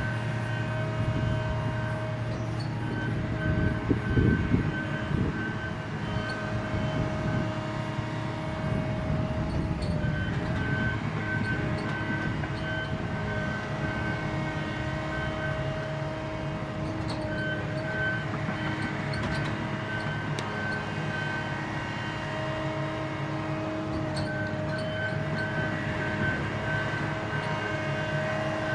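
Diesel engine and hydraulics of a John Deere 853M tracked feller buncher working: a steady heavy rumble with a whine that comes and goes, and a few louder knocks about four seconds in.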